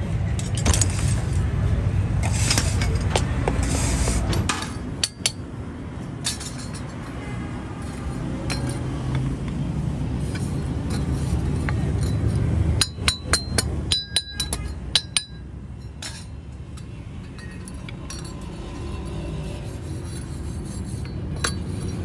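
Hand tools striking and scraping a cast-metal water pump impeller: a quick run of sharp, ringing metallic clinks about 13 to 15 seconds in, with scraping and knocking of metal on gravel earlier.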